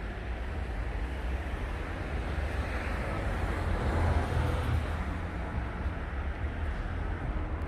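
Wind rumbling on the microphone over a steady outdoor rush of noise, swelling about halfway through.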